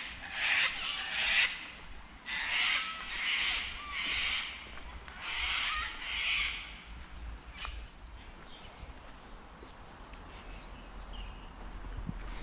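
Sulphur-crested cockatoos screeching: loud, harsh calls, mostly in pairs, over the first seven seconds. From about eight seconds in, finches chatter in quick, high chirps.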